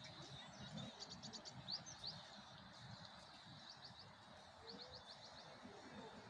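Small birds chirping in several quick runs of short, high, rising notes, over a faint steady hiss of outdoor background noise.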